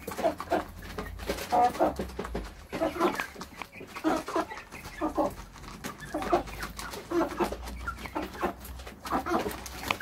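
A flock of chickens clucking in short, repeated calls as they feed, with light taps of beaks pecking pellets from a plastic feeder pan.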